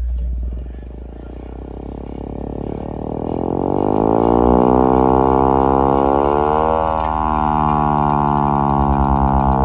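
VXS-1200M hand-crank tornado siren being cranked. Its wail dips and softens near the start, then rises in pitch and grows louder over about three seconds. It then holds steady, with a brief rise and fall in pitch about seven seconds in.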